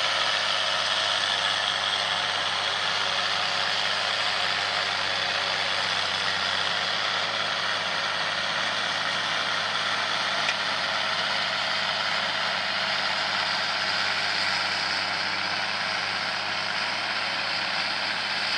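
John Deere tractor engine running steadily.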